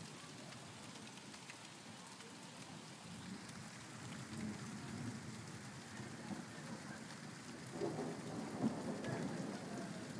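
Steady rain falling with thunder rumbling under it; the rumble builds through the middle and grows loudest in the last couple of seconds, with a couple of sharper cracks near the end.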